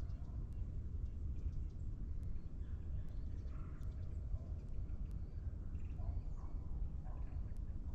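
Morning forest ambience: scattered faint bird calls over a steady low rumble.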